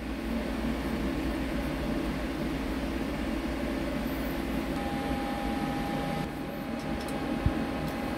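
Steady mechanical hum and hiss of an idling CNC machine with no cutting, joined about five seconds in by a thin steady whine. Near the end comes a single light click as a square carbide turning insert is set into the tool holder.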